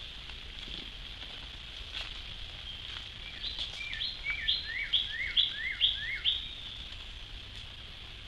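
A songbird singing a quick two-note phrase repeated about seven times, starting about three seconds in, over a steady high drone of insects.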